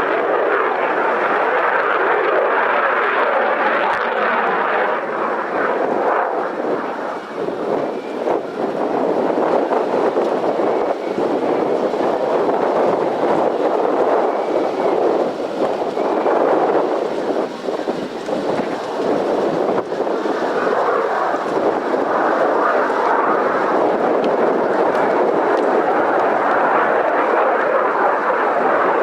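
Aircraft engine noise, loud and steady, dipping briefly a few times.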